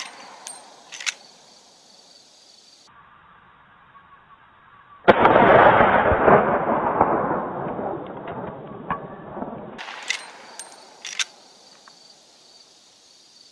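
A single loud shot from a Marlin 1895 .45-70 Government lever-action rifle about five seconds in, its report fading away over several seconds. Sharp metallic clicks of the lever action being worked come near the start and again five to six seconds after the shot.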